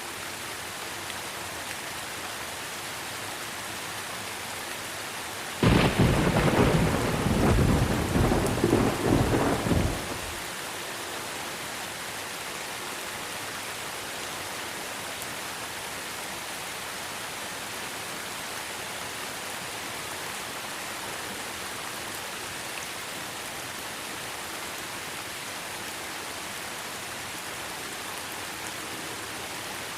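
Steady rain hiss, with one sudden loud thunderclap about six seconds in that rumbles for about five seconds and then stops, leaving the rain alone.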